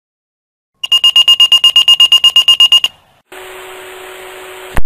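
Motorola fire pager alerting: rapid, high-pitched beeping, about ten beeps a second, for roughly two seconds. Then the pager's speaker opens to a steady hiss with a low hum, cut off by a click near the end.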